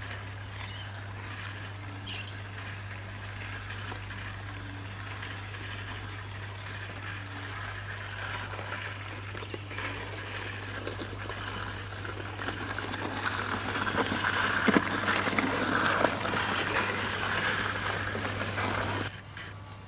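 G scale electric model tram running along garden railway track, its wheel and motor noise growing louder as it nears and passes close, with scattered clicks over the rails, then cutting off suddenly near the end. A steady low hum lies underneath.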